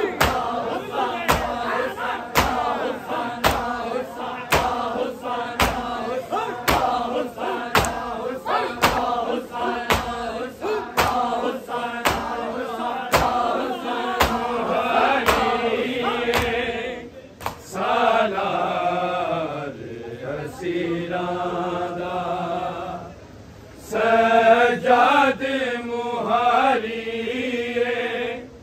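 A noha party chants a Muharram noha, with a rhythmic strike about three times every two seconds, typical of matam (chest-beating). About 17 seconds in the beating stops and the reciters hold long, sliding notes.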